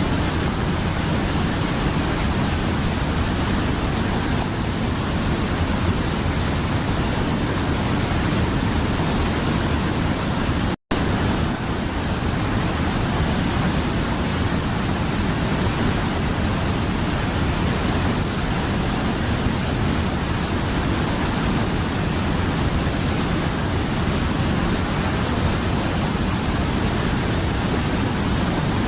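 Mountain river flowing, a steady full rushing of water, with a momentary drop-out about eleven seconds in.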